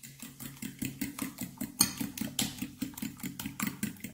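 A metal fork beating raw eggs in a small glass bowl, tapping the glass in a fast, even rhythm of about six strokes a second.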